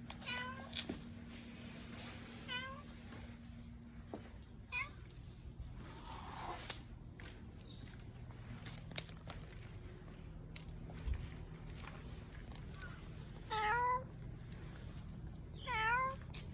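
A domestic cat meowing about five times in short, curved calls. The first three are faint and widely spaced, and the last two, near the end, are louder. Scattered light clicks and taps are heard between them.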